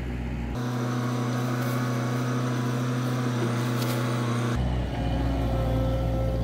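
Skid-steer loader's engine running steadily.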